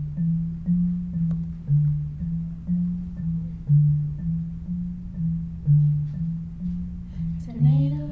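Music: a loud, low repeating pattern of short notes, about two a second, with a singing voice coming in about seven seconds in.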